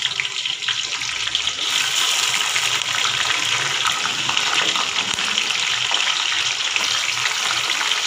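Raw, freshly washed chicken pieces sizzling and crackling as they go into hot oil with browned onions. The sizzle grows louder about two seconds in as more pieces are added.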